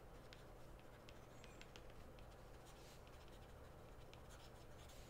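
Faint light ticks and scratches of a stylus writing on a tablet screen, over a low steady hum.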